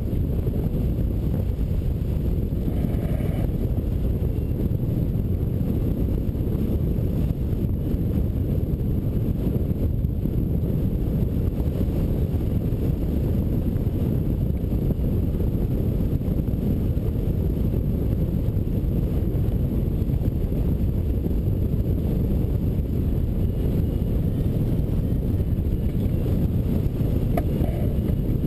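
Airflow buffeting the microphone of a camera mounted on a hang glider's wing in flight: a steady, even low rumble of wind noise.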